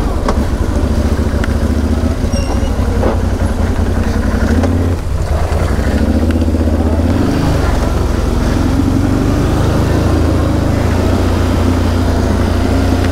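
Quad bike (ATV) engine running under way on a muddy forest track, its note easing off briefly about five seconds in and picking up again, under a steady hiss of wind and rain.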